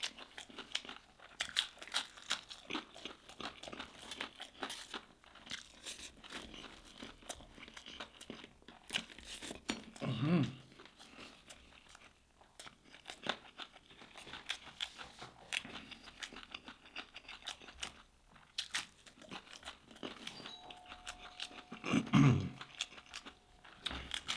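Close-up crunching and chewing of crispy fried fish with a crunchy nut coating: dense, irregular crackles of the crust breaking between the teeth. Two short voiced sounds come through, about ten seconds in and near the end.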